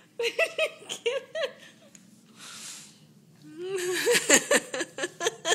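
A woman laughing in short, broken bursts: a first run of laughs, a breathy exhale, then a longer run of laughter near the end.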